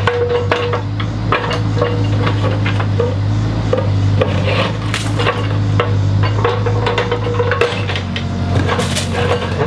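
Machine engine running steadily under an irregular clatter of bricks knocking, scraping and falling as a brick wall is pulled down in chunks.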